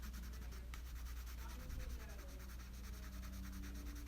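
Faint scratchy strokes of a colouring tool rubbing on paper as blue colour is laid in lightly around a drawing, over a low steady hum.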